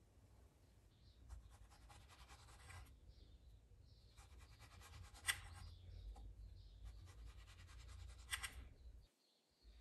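Kitchen knife slicing through fresh strawberries on a plastic cutting board: faint, scratchy cuts in three short runs, with a sharp tap of the blade on the board about five seconds in and again near the end.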